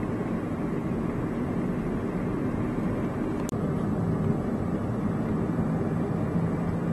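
Steady car road and engine noise heard from inside the cabin while driving, with a brief break in the sound about halfway through.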